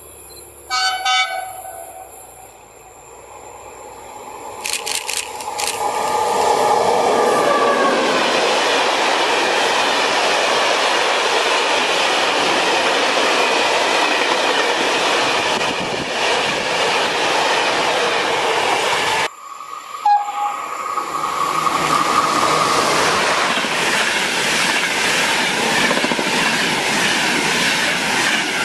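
Electric train horn sounds a short blast, then a freight train of open-top gondola wagons runs past close by with a loud steady rumble and wheel clatter. It cuts off abruptly about two-thirds of the way in; after a brief horn note, a passenger train passing at speed takes over.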